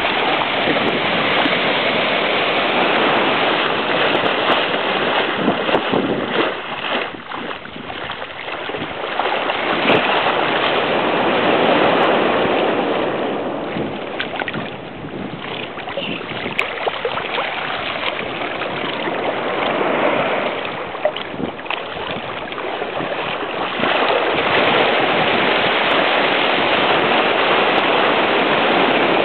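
Ocean surf breaking and washing in, with wind on the microphone; the rush swells and eases as the waves come through.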